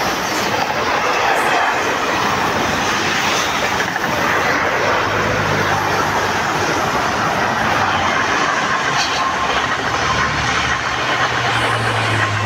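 Electric trains passing close at speed: a double-deck commuter train's wheels rolling over the rails, then a TGV Duplex coupled to an ex-POS set coming through. A low hum comes in about halfway and grows stronger near the end as the TGV draws near.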